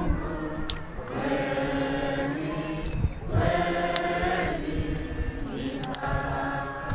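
A group of people singing together in unison, holding long notes in phrases of a second or more, with a few scattered hand claps.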